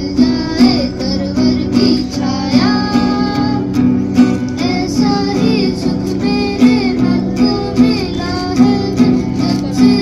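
A song with guitar and a singing voice carrying a melody over steady held notes.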